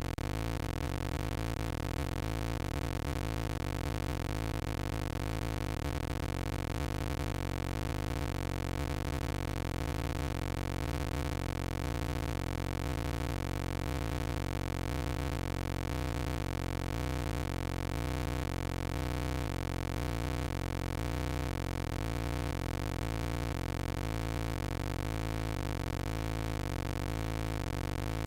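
A steady electronic drone over a hiss, with a low part that steps back and forth in pitch; no speech is heard.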